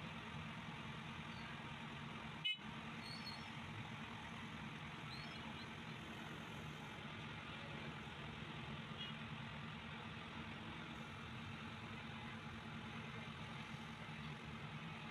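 Steady background hum of street traffic, with one sharp click about two and a half seconds in.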